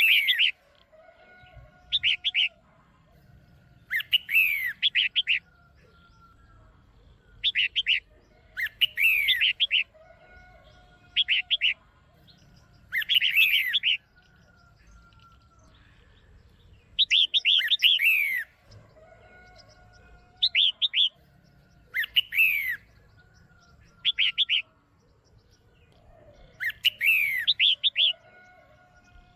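Female red-whiskered bulbul calling: short bursts of quick chirps and falling whistles, repeated about every two seconds, with one longer pause midway.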